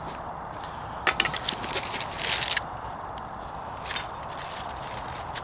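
Food packets and gear being handled and unpacked: a quick run of clicks and rattles about a second in, then a short rasping rustle, and a softer rustle a little later.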